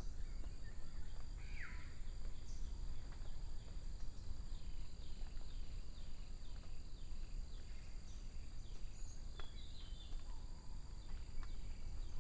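Forest ambience: a steady high insect drone over a low rumble, with a bird giving a run of short falling notes, about two a second, through the middle.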